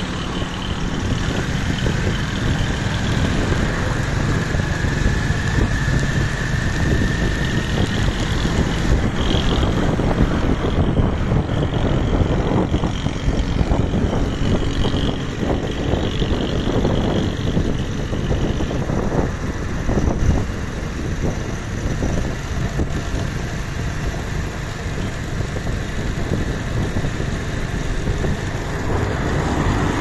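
Engine of a moving road vehicle running steadily, with wind buffeting the microphone as it rides along the road.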